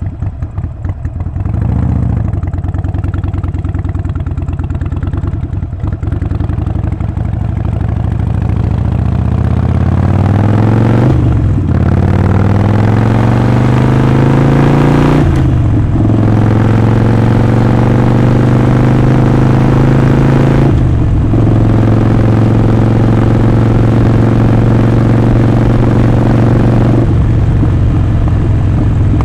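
Harley-Davidson Sportster 48's 1200 cc air-cooled V-twin under way, with a short rev early, then accelerating through the gears. The engine note climbs and drops briefly four times at upshifts, then settles into a steady cruise.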